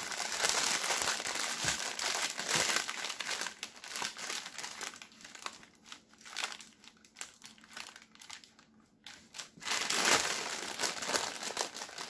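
Parchment paper crinkling and rustling as it is handled, sparser and quieter in the middle and louder again near the end as the sheet is lifted.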